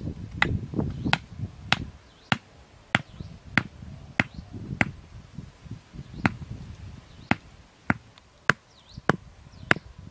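Wooden stakes hammered into the ground by hand: a steady run of sharp knocks, roughly one every half second, with a short pause midway.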